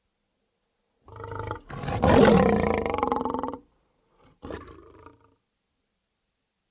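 Big-cat roar sound effect: a short growl about a second in, then a long loud roar, then a shorter, quieter growl, with dead silence between.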